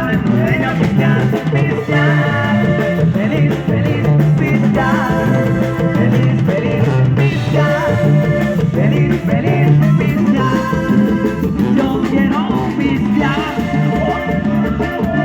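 Live band playing a cumbia medley: a steady dance beat with a repeating bass line and held chords.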